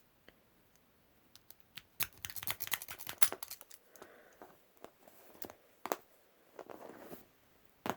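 Metal padlocks and lock-picking tools clicking and rattling as they are handled: a few faint ticks at first, then a dense run of sharp clicks about two seconds in, followed by scattered clicks with a louder one near the middle.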